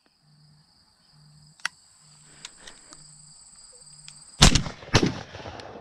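Two shotgun shots about half a second apart, a little over four seconds in. A steady high buzz of insects runs underneath before the shots.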